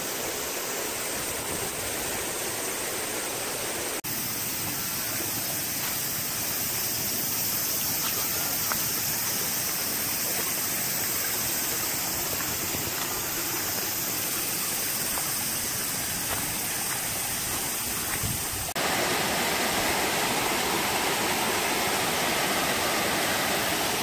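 Water rushing over rocks in a small stream cascade, a steady noisy flow that jumps in level about four seconds in and again about three-quarters of the way through.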